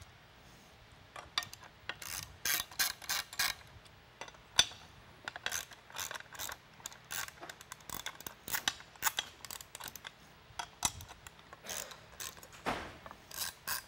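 Hand ratchet wrench clicking in short runs of rapid clicks with pauses between, as it loosens the bolts holding a steel mounting bracket to a siren speaker.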